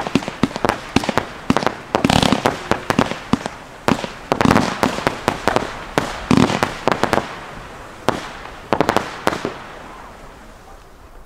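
Fireworks going off in quick volleys of sharp bangs, grouped in clusters every couple of seconds; the bangs stop about nine seconds in and the sound dies away.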